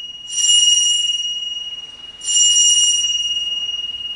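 Altar bell rung twice at the elevation of the consecrated host, marking the consecration. Each ring starts with a bright jingle and then fades slowly as a steady high chime.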